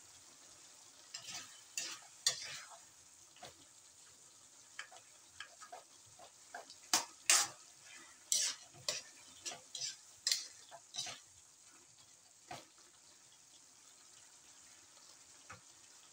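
Wooden spatula stirring wet bottle gourd slices and sardines in a metal wok, a string of sharp scrapes and knocks against the pan from about a second in until about twelve seconds, busiest in the middle, over a steady low hiss.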